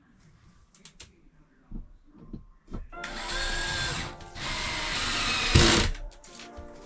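Power drill running about three seconds in, a short burst and then a longer run that ends with its loudest moment, before stopping.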